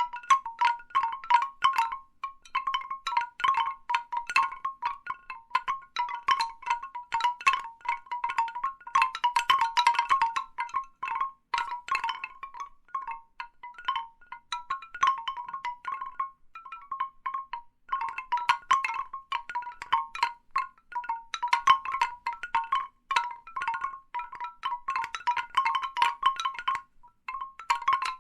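Large bamboo wind chimes knocking together in irregular clusters, each knock ringing with a hollow, woody note. The clatter thins out for a few seconds about halfway through and again briefly near the end.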